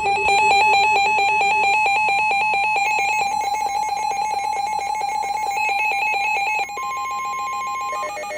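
Electronic emergency alert tone: a loud, rapid trill like a telephone ringer for about six and a half seconds, then a steady single high tone for over a second, opening a tornado warning broadcast.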